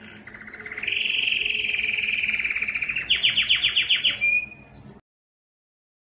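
Domestic canary singing: a fast rolling trill that steps up in pitch about a second in, then a quick run of falling notes, about eight a second, and a short whistle before the song cuts off.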